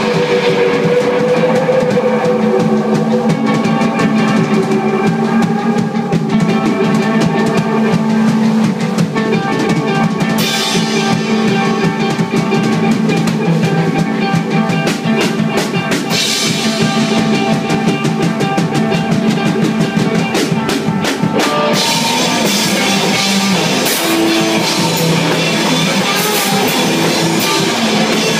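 A rock band playing live, instrumental with no singing: electric guitar, bass and a busy drum kit. The cymbals grow heavier in the last third.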